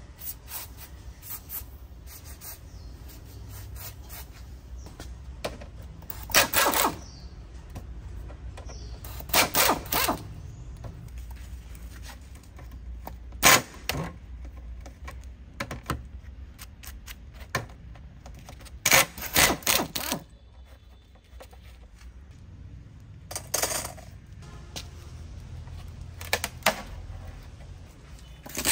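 Metal tools and parts clinking and clacking as they are handled, in short clusters of sharp clicks every few seconds over a steady low hum.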